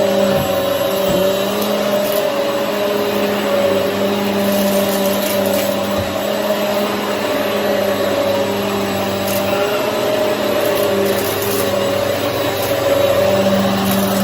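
Hoover EliteSwivel vacuum cleaner running steadily, its motor hum wavering a little, with a few faint clicks.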